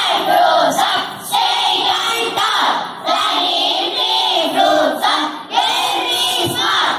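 A group of schoolchildren loudly chanting an action poem in unison, in short phrases with brief breaks about a second apart.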